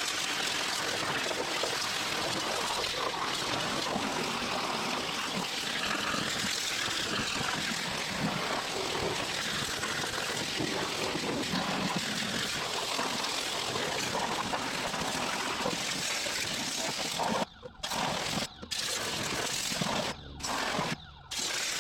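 Steady hiss of water spraying onto a car's body as it is washed down, broken by a few brief gaps near the end.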